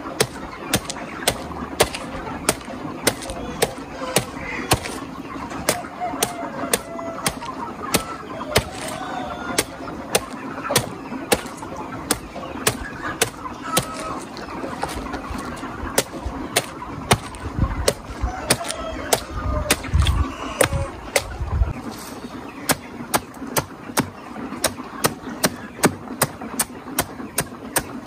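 Large knife chopping through a banana stem in quick, even strokes, about two crisp chops a second, each blade cutting through the stem into the ground beneath. Poultry call faintly in the background.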